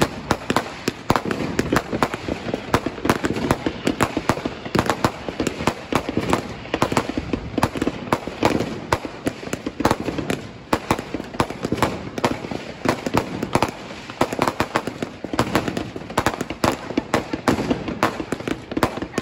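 Many fireworks and firecrackers going off together: a dense, continuous crackle of sharp bangs, several a second, over a low rumble.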